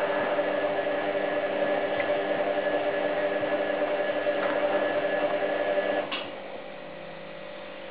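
Hoover Time Manager H130E washing machine running in the heating stage of a 90°C cottons wash: a steady motor hum with several steady tones. About six seconds in it stops with a click, leaving a quieter hum.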